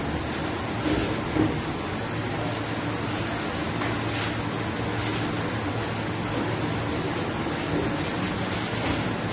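Steady machine noise: an even hiss with a low hum underneath, with a couple of faint knocks in the first second and a half.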